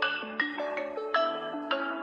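A realme GT2 Pro phone ringtone playing: a quick melody of struck, ringing notes, a few a second.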